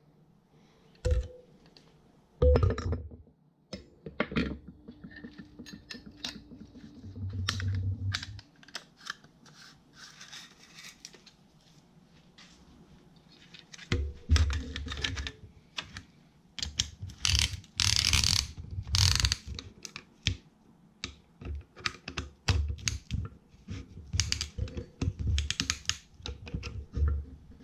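Piston ring compressor and pistons being fitted into the cylinders of a 1942 Farmall H engine block: irregular metal clicks, clinks and light knocks. A fast run of clicks comes about six seconds in, and a cluster of louder taps and thumps falls around the middle, as pistons are driven down into the bores.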